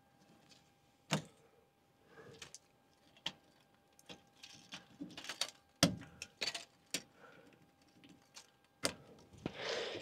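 Aircraft circuit breakers on an Airbus A320 overhead panel being pushed back in one at a time, each closing with a sharp click. About half a dozen clicks come at irregular intervals, with light handling of the plastic safety clips between them.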